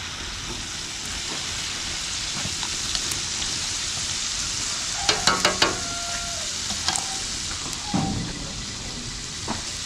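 Chicken pieces deep-frying in a wok of hot oil, a steady sizzle. A few short clinks of metal tongs against the wok about halfway through and again near the end.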